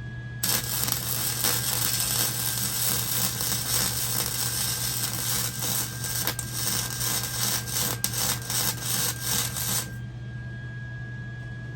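Welding arc crackling and hissing steadily as a bead is run on steel, starting about half a second in and cutting off abruptly about ten seconds later. A steady low hum runs underneath.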